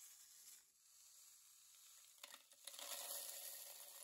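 Steel tumbling shot, small balls and pins, poured from a plastic lid into a rotary tumbler's plastic barrel. A few clicks come at first, then from about two and a half seconds in a steady hissing rush of metal pieces pattering into the barrel.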